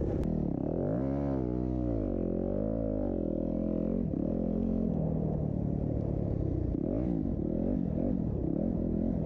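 Dirt bike engines revving up and down as the bikes race, the pitch climbing and dropping about once a second early on and then several engines overlapping at varied pitches.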